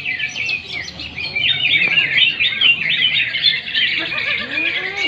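Green leafbird (cucak ijo) singing a loud, fast, unbroken stream of chirps and whistled slurs, busier from about a second and a half in.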